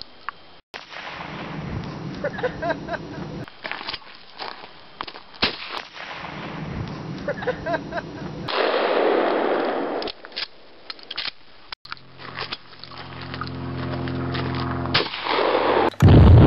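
Shotgun shots, a string of sharp reports spread across an edited sequence. Near the end comes a steady droning hum, then a very loud blast breaks in during the last half second.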